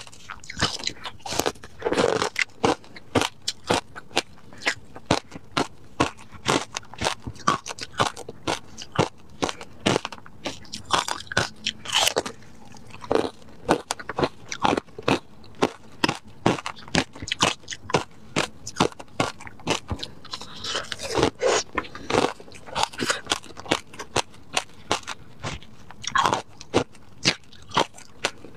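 Crunching and chewing of frozen matcha ice slices topped with passion fruit seeds, picked up close by a clip-on microphone: sharp crunches come several times a second as the ice is bitten and ground between the teeth.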